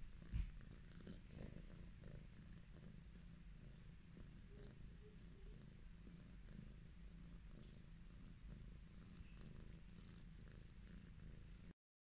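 Highland Lynx cat purring softly and steadily, a low continuous rumble, with a short knock just after the start and a brief cut-out near the end.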